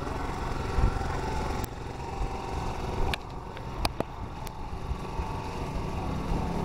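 Outdoor street ambience: a steady low rumble of road traffic, with a few short sharp clicks in the middle.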